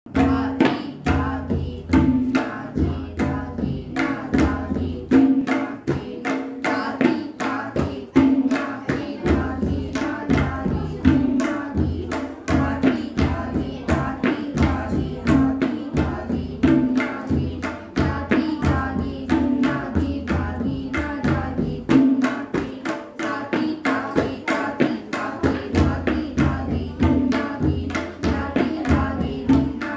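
Three tabla pairs played together in quick, dense strokes. The tuned right-hand drums (dayan) ring at one steady pitch, and the left-hand bass drums (bayan) sound deep strokes in repeated phrases underneath.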